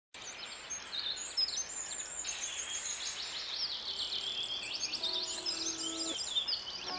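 A dense chorus of many small birds chirping and trilling. Soft held music notes come in about four to five seconds in.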